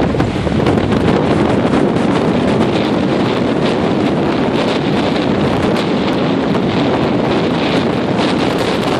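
Gale-force wind blasting the microphone in a loud, steady rush, with Lake Michigan waves surging underneath.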